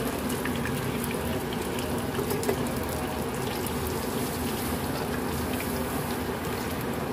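Pre-braised chicken pieces frying in hot oil in a shallow pan, a steady sizzle with scattered small crackles and one slightly louder pop about two and a half seconds in.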